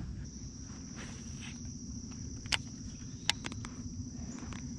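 Baitcasting reel being cranked in a steady retrieve, giving a thin, even high whine over a low hum, with a few sharp clicks along the way.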